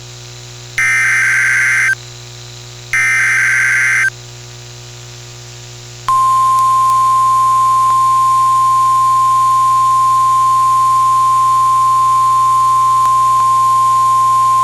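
NOAA Weather Radio Emergency Alert System activation: the last two of three SAME digital header bursts, each a harsh one-second data warble, then after a pause of about two seconds the steady 1050 Hz weather radio warning alarm tone starts, about six seconds in. It signals an incoming winter storm warning.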